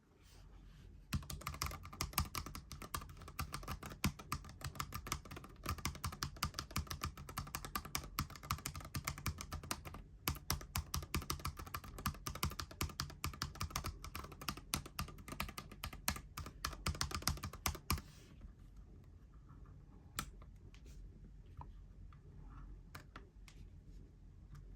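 Fast typing on a GMMK Pro mechanical keyboard with Glorious Panda tactile switches: a dense run of keystrokes, with a brief pause about ten seconds in. About eighteen seconds in the typing stops, and only a few scattered keystrokes follow.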